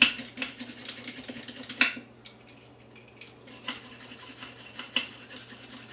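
Vegetable peeler scraping down a carrot in repeated short strokes, with a sharp loud hit right at the start and another about two seconds in, then a brief lull before lighter strokes resume. A low steady hum runs underneath.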